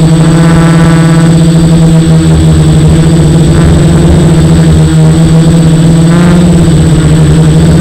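F450 quadcopter's four electric motors and propellers giving a loud, steady drone, with a slight rise and fall in pitch about six seconds in as the throttle changes.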